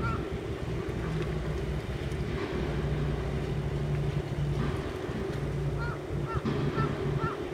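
Engines of a white flybridge sportfishing boat under way at speed, a steady low drone, with wind rumbling on the microphone. A few short high chirps come near the end.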